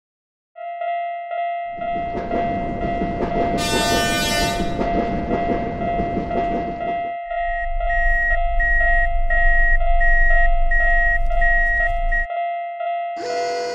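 Japanese level-crossing warning bell ringing in a steady repeating pattern, joined by the rush of a passing Shinkansen. The train's horn sounds briefly about four seconds in, and a low rolling rumble follows until near the end.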